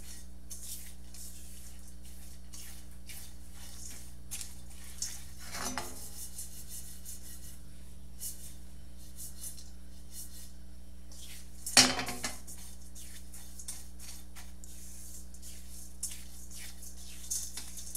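Silicone spatula stirring and scraping dry breadcrumbs around a stainless steel skillet in many short scratchy strokes as they toast. Two louder clanks from the pan come about six seconds and about twelve seconds in; the second is the loudest. A steady low hum runs underneath.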